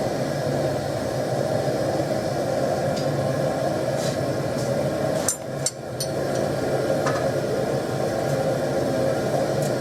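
Gas forge burner running steadily. A few light metallic clinks sound over it, and the sound breaks off briefly a little past halfway.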